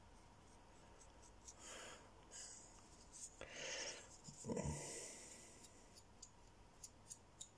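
Faint scratchy rubbing of fingertips along the edge of a small folding pocket knife's blade, feeling for the burr raised by honing on a diamond plate. There are three soft scrapes, then several light ticks near the end.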